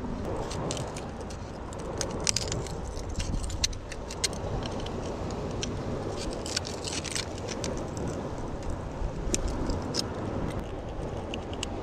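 Small metal pick or blade scraping and clicking against rock in a narrow crack as a buried key is pried out: a run of sharp, irregular metallic ticks and scrapes over a steady low rumble.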